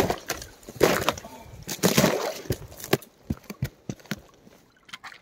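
Footsteps crunching over snow and crusted ice, followed by a few short, sharp snaps about three to four seconds in.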